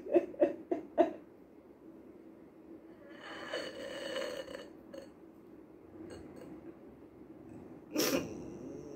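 A woman crying without words: a run of short sobbing breaths in the first second, a long shaky breath about three seconds in, and a sharp intake of breath near the end.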